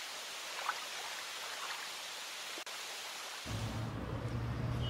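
A steady hiss of static with faint scattered crackles breaks off briefly about two and a half seconds in. Shortly after, a low steady hum takes over.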